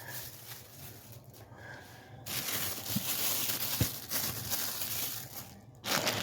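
Packaging crinkling and rustling as the coat rack's parts are handled and unwrapped, with a couple of light knocks in the middle.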